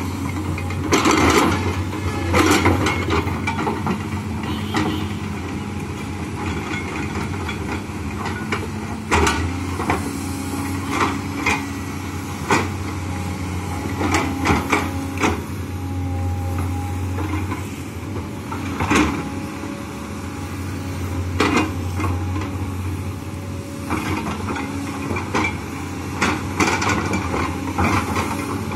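LiuGong crawler excavator's diesel engine running steadily while it digs earth. Frequent sharp clanks and knocks come from the bucket and its linkage, at irregular times throughout.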